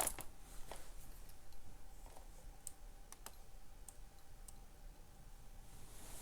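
Faint, scattered light clicks and taps of handling as a microwaved eco-printing bundle is opened up, a few sharp clicks spread over several seconds.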